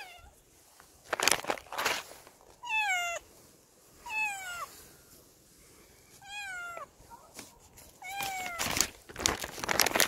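Stray cat meowing four times, each call falling in pitch. Short, louder bursts of noise come before the first meow and again near the end.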